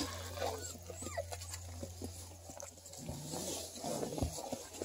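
Six-week-old beagle puppies moving about on dirt and dry leaves: faint scattered rustles, clicks and small squeaks, over a faint steady low hum.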